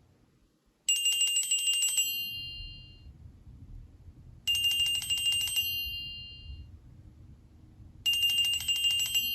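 Nokia N71 flip phone playing a ringtone through its loudspeaker: a rapid trilling ring about a second long, repeated three times about three and a half seconds apart, each ring fading out.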